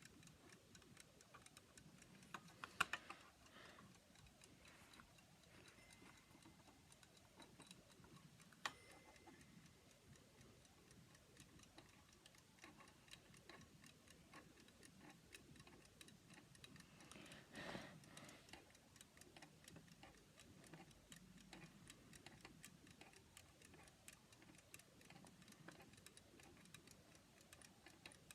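Faint, steady ticking of an alarm clock's movement running. A few sharper handling clicks come about three and nine seconds in, and a brief rustle near eighteen seconds.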